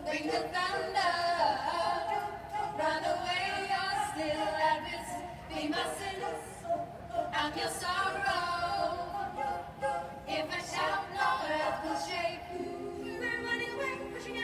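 Women's a cappella choir singing in close harmony with no instruments. About twelve seconds in, the voices settle into a steady held chord.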